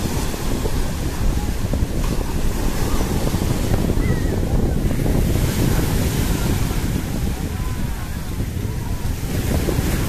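Rough Black Sea surf breaking on a sandy shore: waves crash and wash up the beach, the hiss swelling several times as each wave breaks, over a heavy wind rumble on the microphone.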